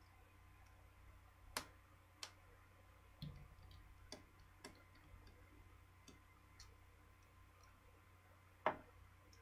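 Faint, scattered small clicks and taps from a disassembled smartphone's parts and a small screwdriver being handled, about eight in all, the loudest near the end.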